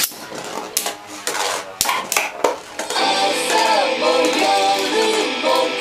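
A plastic Beyblade spinning top lands in a plastic stadium and clatters against the floor with sharp clicks and knocks. About three seconds in, background music starts and becomes the loudest sound.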